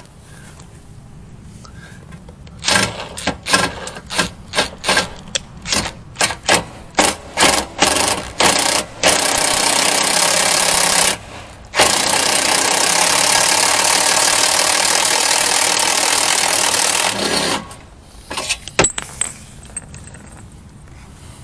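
Makita cordless impact driver turning a cheap hole saw into a car's sheet-metal body panel. It runs in short trigger bursts at first, then in two long stretches of steady hammering, and cuts out about seventeen seconds in with a few rattles, as the hole saw breaks.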